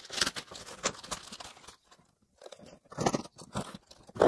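Clear plastic wrapping on a cardboard parcel crinkling and crackling as a hand grabs and pulls at it, in irregular handfuls with a short pause about halfway.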